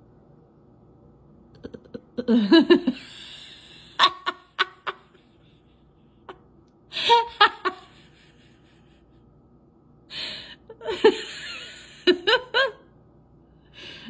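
A person laughing in several breathy, chuckling bouts, the longest near the end.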